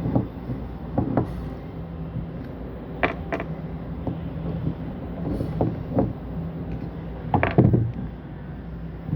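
Scattered clicks and knocks of metal parts being handled while a pneumatic solenoid valve is taken apart, the loudest cluster about seven and a half seconds in, over a steady low machine hum.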